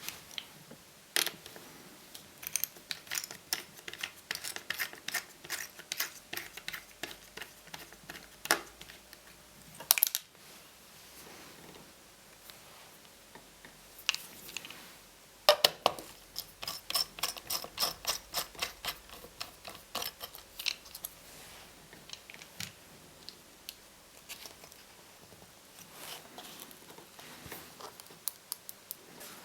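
Quick runs of small clicks, ticks and light scrapes from hands and tools working on laptop parts, heaviest about a second in and again around halfway.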